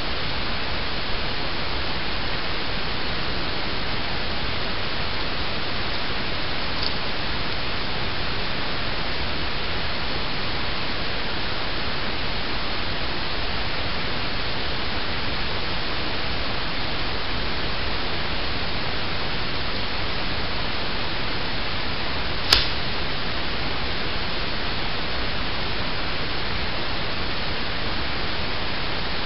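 Steady static-like hiss with no other sound in it, broken once by a single sharp click about 22 seconds in.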